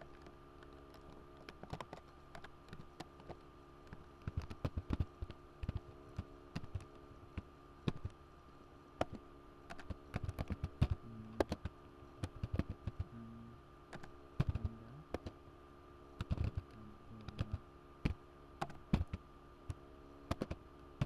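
Keystrokes on a computer keyboard while code is typed, irregular clicks coming in short runs with pauses between, over a faint steady hum.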